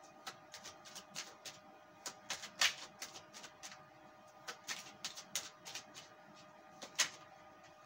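A tarot deck being shuffled in the hands: a run of irregular, quick card clicks and slaps, the loudest about two and a half seconds in and near the end, over a faint steady hum.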